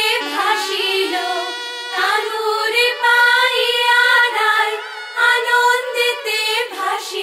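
Background music: a Bengali wedding song sung by female voices, the melody wavering and held between phrases.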